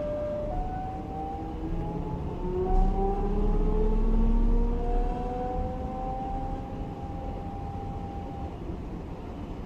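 Class 425 electric multiple unit's traction inverters and motors accelerating: several whining tones glide upward in steps. A low rumble swells and fades midway.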